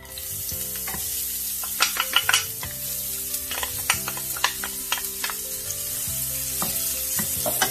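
Chopped red onion sizzling as it hits hot vegetable oil in a stainless steel frying pan, the hiss starting suddenly as the onion goes in. A wooden spatula stirs it, clicking and scraping against the pan.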